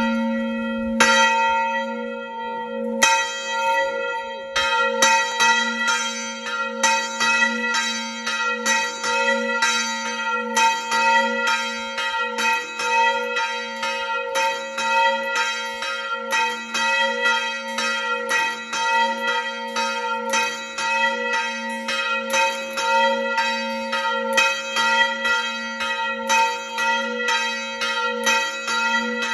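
A single church bell rung by hand with a rope. A few spaced strokes come first, then from about five seconds in a steady ringing of about two strokes a second, each stroke ringing on into the next.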